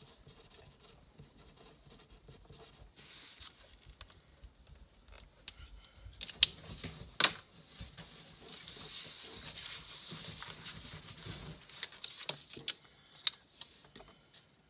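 Paper being handled on a desk: a sticker sheet and planner pages rustling and sliding, with scattered sharp taps and clicks, the loudest two coming about six and seven seconds in and a few more near the end.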